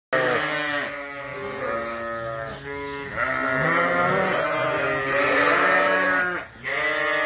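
A flock of sheep bleating, many calls overlapping one after another, with a brief lull about six and a half seconds in.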